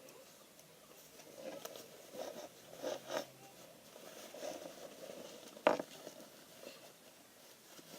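Faint rustling and scraping of a cloth hand puppet being pulled on over a hand, with one sharp click a little before six seconds in.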